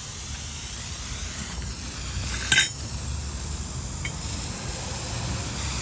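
One sharp metallic clink of steel parts or tools, about halfway through, and a faint tick a little later, over a steady low rumble, during work on a car's coil-spring suspension.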